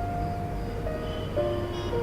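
Background score music: a slow, sparse melody of long held notes, stepping down in pitch about a second in and again near the end.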